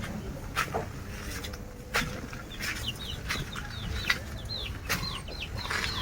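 Chickens clucking, with a quick run of short, high, falling chirps starting about two and a half seconds in, and a few sharp knocks.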